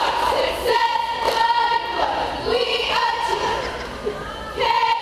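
A squad of cheerleaders chanting a cheer in unison. Many high voices hold drawn-out chanted phrases, each about a second long, with short breaks between them.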